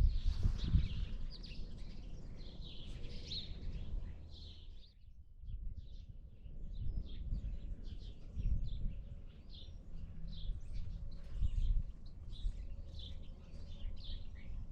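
Small birds chirping over and over, with a low, uneven rumble underneath.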